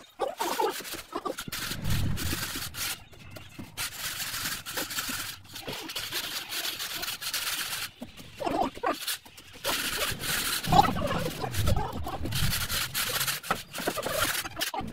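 Gloved hand scraping and smoothing damp sand-cement floor screed along the foot of a wall, in irregular rasping strokes, while an animal calls now and then in the background.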